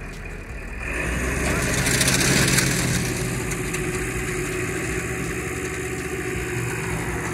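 Tractor's diesel engine running under load as it moves a fishing boat on a heavy trailer, getting louder about a second in and then holding steady.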